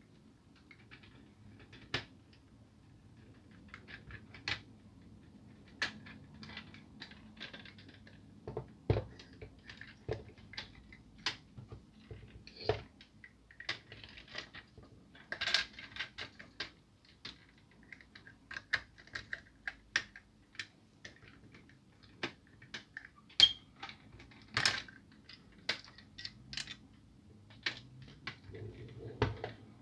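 Irregular clicks and taps of the hard plastic parts of a Kyocera DK-150 drum unit being handled and pried apart with a small screwdriver, the loudest two clicks about three-quarters of the way through.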